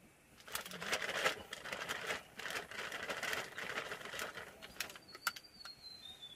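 Plastic bag of shredded cheese crinkling and rustling as a hand digs into it and sprinkles the cheese. Near the end a thin high whistle slides slowly down in pitch.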